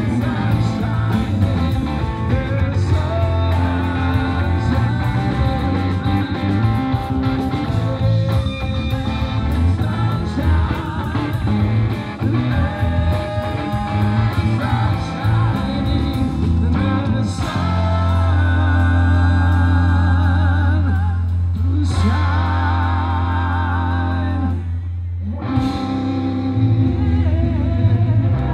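Live rock band playing: electric guitar, bass and drums with singing.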